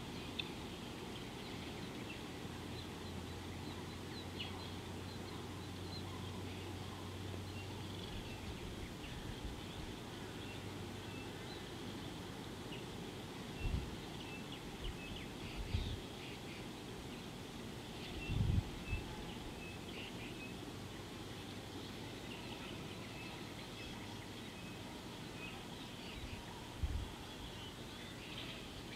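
Birds chirping and calling over a steady outdoor background hiss, with a run of short repeated notes past the middle. A low hum fades in and out over the first third, and four brief low thumps stand out.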